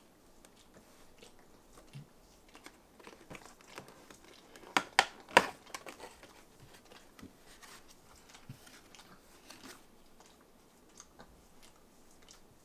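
Cardboard Krispy Kreme doughnut box being handled and opened: soft rustling and small taps of the card, with three sharp clicks close together about five seconds in.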